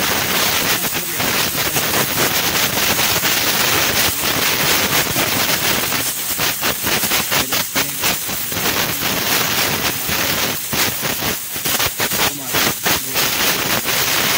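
Compressed-air blow gun hissing loudly and without a break as it blasts caked dust out of a Suzuki Wagon R's radiator, the hiss wavering as the nozzle is moved across the core. The radiator is clogged with dust.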